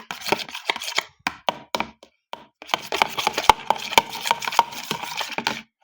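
Spoon stirring and scraping in a small container of slime ingredients, with quick irregular clicks and taps against the sides and a short pause about two seconds in.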